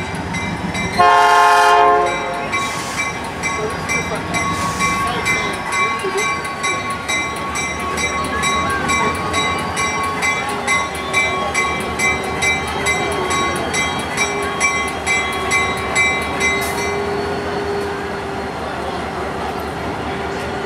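Diesel locomotive sounding one horn blast about a second in, then its bell ringing rapidly until near the end, over the rumble of the train rolling slowly across the crossing.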